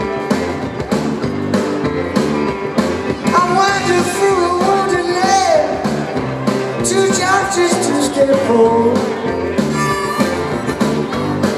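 Live rock band playing an instrumental break between verses, with a harmonica solo played into the vocal mic over acoustic guitar, electric guitar and drums; the harmonica line bends and wavers through the middle of the break.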